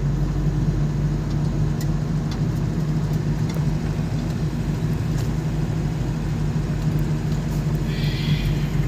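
Motor vehicle driving along at a steady speed: a constant low engine hum with road and tyre noise, and a few light rattles.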